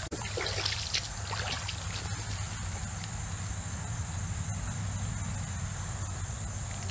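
Shallow creek water running steadily, a constant wash with a thin high hiss over it, and a few small clicks in the first second.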